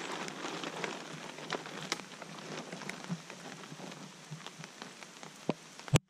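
Steady rain with many drops pattering, along with the rustle of a large plastic tarp being shaken out and laid on the forest floor, busiest in the first second. A sharp knock comes just before the end, and then the sound cuts off suddenly.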